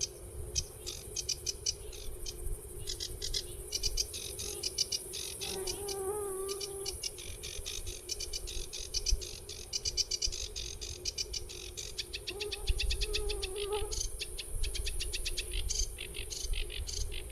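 Birds chirping in rapid trains of high notes, over a steady high insect hiss. Twice a lower, wavering call lasting a second or two.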